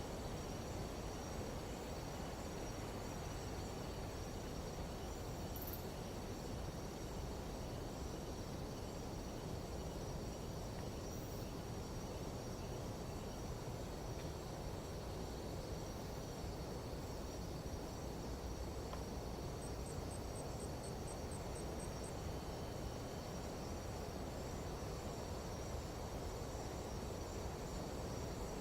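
Night-time jungle insect chorus: several steady, unbroken high trills from crickets and katydids. It sits over a steady low rush of wind. About two-thirds of the way through comes a brief, rapid run of about ten very high pulses.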